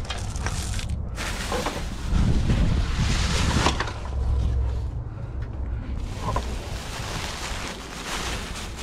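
Wind buffeting the microphone as a steady low rumble, with irregular bursts of plastic trash bags rustling as they are handled.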